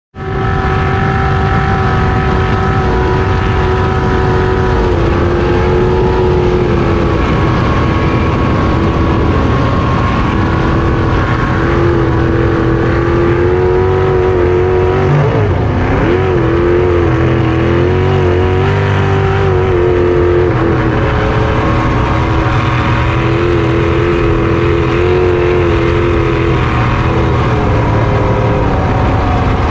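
Race jet boat's engine running hard at speed, heard from on board over the rush of wind and water. Its pitch steps up and down a few times and wavers briefly about halfway through.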